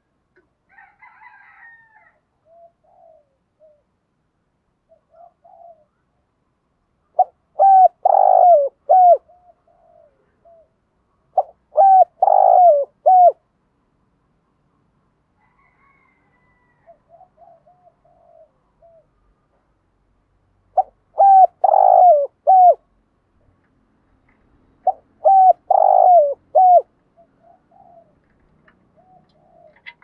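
Spotted dove singing its cooing song: four loud phrases of several coos each, falling in two pairs about four seconds apart, with softer coos between them.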